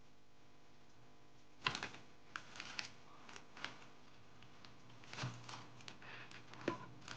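Scattered light clicks and taps of plastic figurine parts being handled, starting about two seconds in. A faint low hum sets in about five seconds in.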